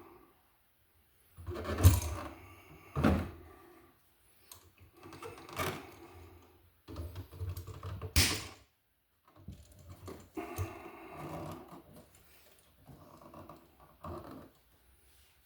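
Electrician's pliers working copper wire at a wall receptacle: sharp clicks and snips with scraping and handling noise between them, as wire ends are clipped and bent into fresh loops for the screw terminals. The loudest clicks come about two, three and eight seconds in.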